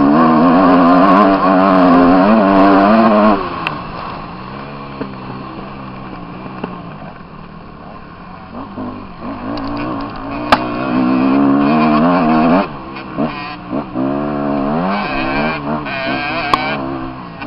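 Motocross bike engine heard on board, revving hard with a wavering pitch for the first few seconds, then the throttle closes and it runs much quieter. Past the middle it revs up again, and near the end it rises and falls in short throttle blips.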